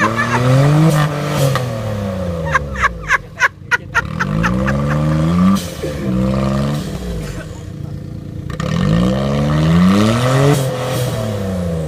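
Off-road vehicle's engine revving up and down over and over as it is driven through deep mud. There is a quick run of short sharp sounds about three seconds in.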